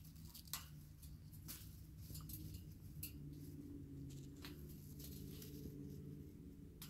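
A parrot's beak biting and working a grape: scattered sharp clicks, several over a few seconds, over a faint steady low hum.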